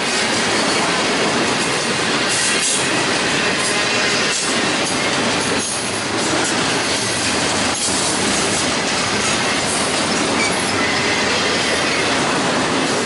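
Double-stack intermodal container well cars of a freight train rolling past close by: a loud, steady rumble and rattle of steel wheels on rail, with a few sharp clicks at irregular intervals.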